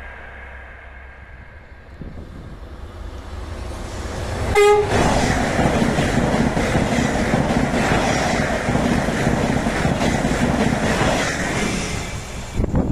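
Regio2N double-deck electric train passing at speed: a rising approach, a short horn toot about a third of the way in, then the loud rush of the train going by, which eases off near the end.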